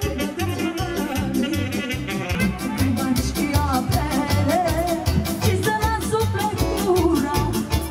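Amplified Romanian hora and sârba folk dance music with a steady bouncing beat, a melody line weaving over it from about two seconds in.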